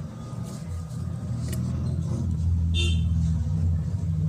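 Low engine rumble of a motor vehicle, growing louder, with a brief high toot about three seconds in.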